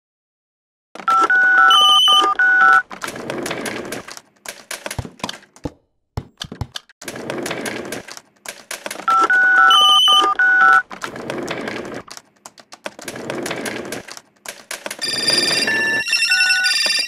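Electronic telephone ringing: a short stepped tune of beeps, with a warbling trill, that repeats about every eight seconds. Between the rings there are clicks and bursts of rustling noise.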